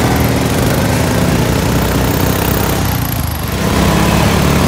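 Modified off-road riding lawn mower's small engine running as it pulls a loaded trailer through brush, easing off briefly about three seconds in and then picking back up.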